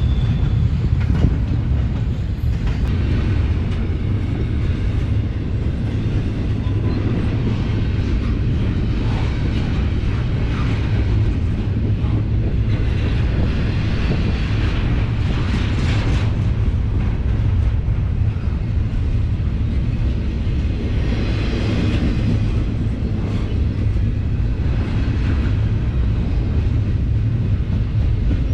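Double-stack container train's loaded well cars rolling past: a steady low rumble of steel wheels on the rails, with higher rushing wheel noise swelling twice, about halfway through and again later on.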